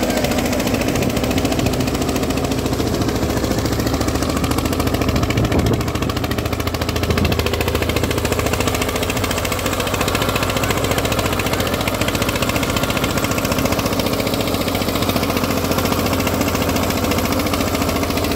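Eicher 241's single-cylinder diesel engine running under load while it pulls a 16-disc harrow through the soil. It runs steadily with a fast, even beat.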